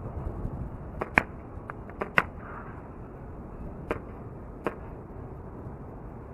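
Red Jacket CO2 airsoft pistol firing single shots as the rest of the magazine is emptied: about six sharp cracks at uneven spacing, the loudest two about a second and two seconds in.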